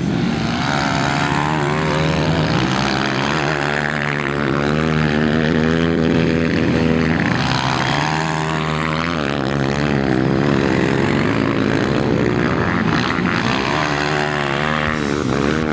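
Motocross dirt bike engines revving hard, their pitch rising and falling over and over as the bikes labour through deep mud.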